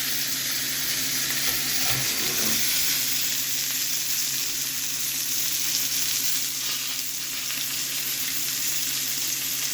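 Cornish hen pieces sizzling steadily in hot oil in a cast iron pan, searing untouched over a gas flame, with a faint steady hum underneath.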